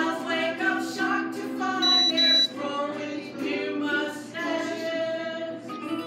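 Small group of voices singing in harmony with held notes, with ukuleles and an upright bass accompanying. About two seconds in, a short, shrill, high-pitched beep cuts in twice in quick succession over the singing.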